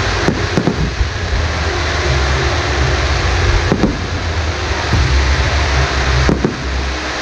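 Fireworks display going off: a steady dense hiss and low rumble with a few sharp bangs, two near the start, one in the middle and one near the end.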